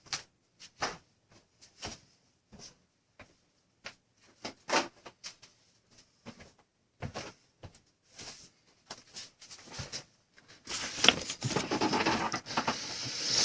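Scattered light clicks and taps of a computer keyboard and mouse being used, irregular and spaced apart, turning into a denser run of rustling and tapping near the end.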